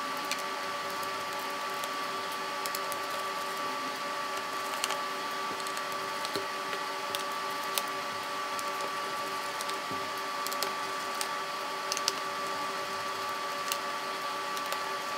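A steady hum of several high and middle tones, with faint scattered clicks from a small precision screwdriver working the screws out of a laptop's plastic bottom panel.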